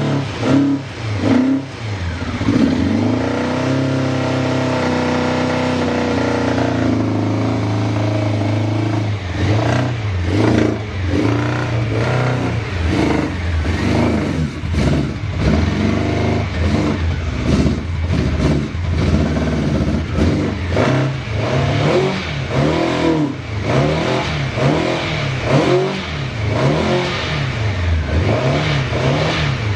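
Honda CBX750F Bol d'Or's air-cooled inline-four engine being revved. It gives a few quick blips, then holds a raised speed for several seconds, then runs through a long series of short throttle blips that rise and fall. The seller describes it as free of abnormal noises.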